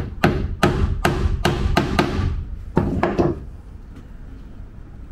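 Claw hammer driving a nail into glued plywood ring-frame laminations to pin the layers in line: about seven quick blows, a short pause, then two more, stopping a little over three seconds in.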